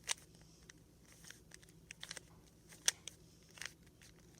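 Plastic 3x3 Rubik's cube being turned by hand: irregular sharp clicks and clacks as its layers are twisted, the loudest about three seconds in.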